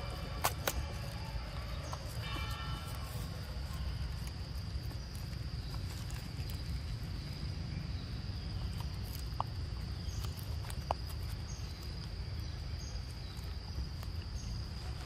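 Outdoor ambience: a steady high insect drone over a low rumble, with a few short sharp clicks, two about half a second in and two more later on.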